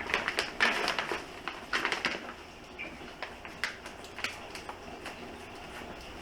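Packaging wrap around a gauge crinkling and crackling as it is handled and unwrapped, with scattered small taps. The crackles are densest in the first two seconds and thin out after that.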